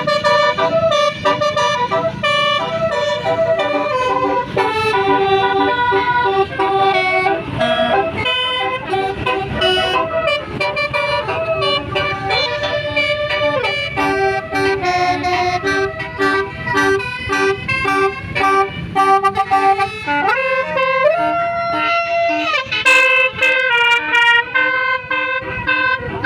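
Tour bus telolet horn, a set of air horns played in sequence, sounding long tune-like runs of notes that step from pitch to pitch with a few sliding notes, over a low rumble.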